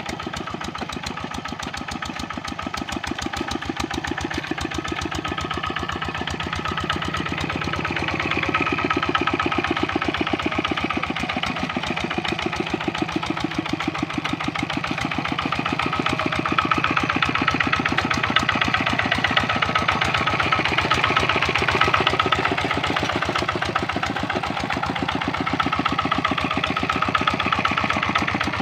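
Kubota RD65 single-cylinder diesel engine on a hand tractor running steadily with a fast, even chugging beat, growing a little louder about eight seconds in.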